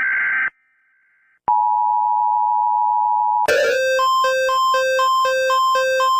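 Emergency Alert System alarm. The last buzzing digital header burst ends about half a second in. After a second's pause comes the steady two-tone attention signal for about two seconds, then a rhythmic beeping on two alternating pitches at about two beeps a second.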